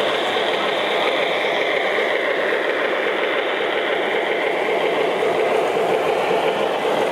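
An O gauge model train rolls past close by on three-rail track: a model diesel locomotive followed by a string of hopper cars, giving a steady rolling rumble.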